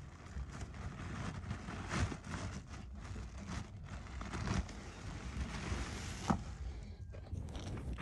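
Faint rustling and scattered soft knocks over a steady hiss, with two sharper knocks, about two seconds in and near the end.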